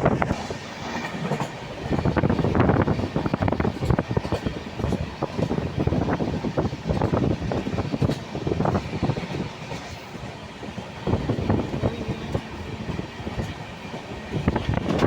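Train running along the track, its wheels and coaches clattering with uneven knocks.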